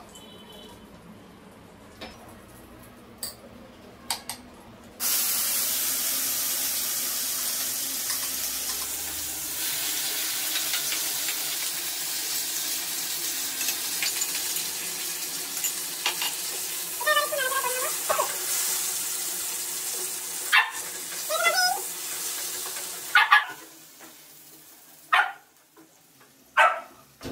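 Wet yellow paste frying in hot oil in a frying pan: a steady sizzle that starts suddenly about five seconds in and stops abruptly near the end.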